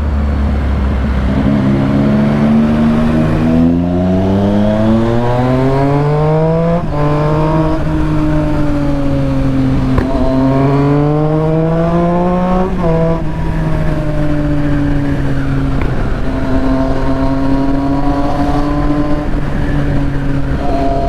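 Triumph Street Triple 675's inline three-cylinder engine through an aftermarket full exhaust, pulling hard with its pitch climbing and dropping back at each upshift, three or four times, then holding a steady cruise from about halfway on.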